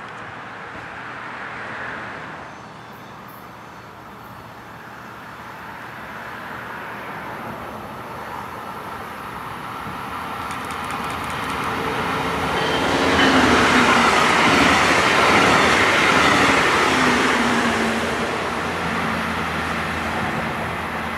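Brightline high-speed passenger train passing at speed behind its Siemens locomotive: a rising rush of engine and wheel noise that builds, peaks about two-thirds of the way through, then fades as it moves away.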